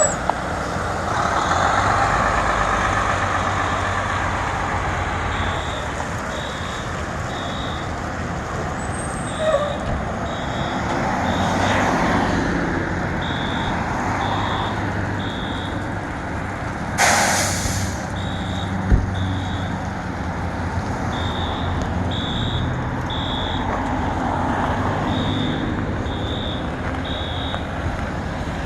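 Fire truck engine running steadily while a building fire alarm sounds nearby in repeating groups of three high beeps with a pause between each group, the evacuation pattern of an activated alarm. About two-thirds of the way through, an air brake lets out a short hiss.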